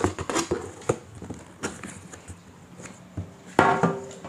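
Cardboard packaging being handled: a few sharp knocks and scrapes in the first second as a boxed MacBook Air is lifted out of a cardboard shipping box, then lighter rustling and ticks. A short voice-like sound comes near the end.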